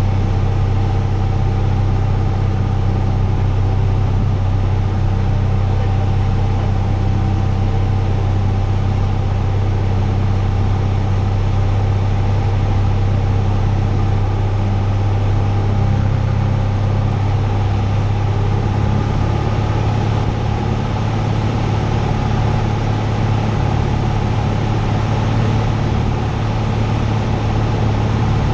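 Cessna 172's piston engine and propeller heard from inside the cockpit in cruise flight: a loud, steady low drone that holds an even pitch throughout.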